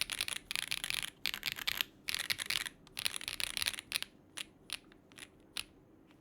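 Mechanical keyboard with stock Duhuk QK01 switches on a polycarbonate plate, keys pressed in several quick flurries of rapid clacks, then four or five single keystrokes spaced about half a second apart.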